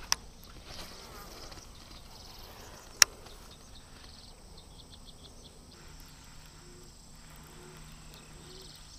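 Insects chirping in the grass, a faint steady background with short repeated high chirps. Two sharp clicks cut through it, a small one right at the start and a louder one about three seconds in.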